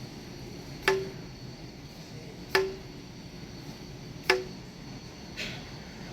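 Trigger pour lid on a can of waterborne basecoat toner clicking as it is worked: three sharp snaps about a second and a half apart, each with a short ring, and a fainter one near the end. Each trigger lets out a drop of about a tenth of a gram onto the scale.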